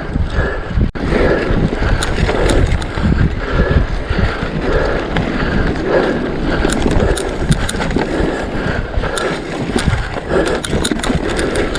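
Mountain bike ridden over rough moorland single-track: a continuous rumble of tyres on the ground, with the bike's frame and parts rattling and clicking over bumps, and wind buffeting the microphone.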